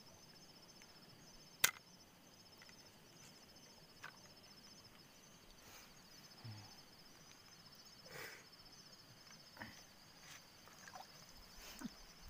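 Steady high trilling of night insects, with one sharp snap about two seconds in and a few soft knocks and splashes after it.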